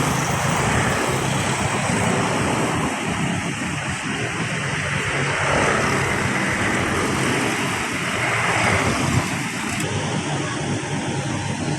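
Strong wind and heavy surf breaking on a sandy beach make a loud, steady rush, which swells twice in the second half. Wind buffets the microphone.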